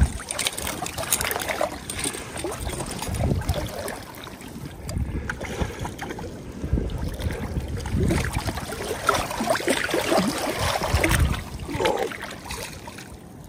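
River water moving around a drift boat, with wind buffeting the microphone in low surges every few seconds and scattered small clicks and knocks.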